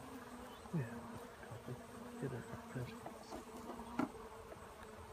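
Honey bees buzzing around an open hive: a steady hum, with single insects droning past close to the microphone, and one light knock about four seconds in.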